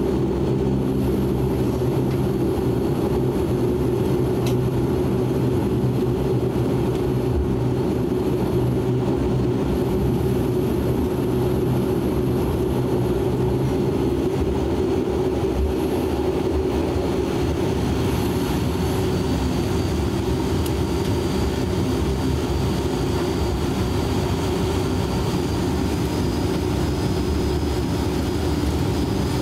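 Cabin drone of a De Havilland Canada Dash 8 Q400's turboprop engines and six-bladed propellers running at low power as the airliner taxis, heard from a seat beside the propeller. A steady low hum with several pitched tones; the deepest tones fade about halfway through, and a faint high whine creeps upward in pitch later on.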